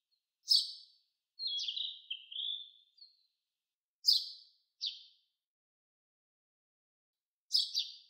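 Small songbirds calling: three short, sharp chirps a few seconds apart, with a run of lower, stepped sliding notes between the first two, and silence in between.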